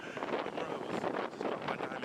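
Wind buffeting the microphone, a rushing, gusting noise.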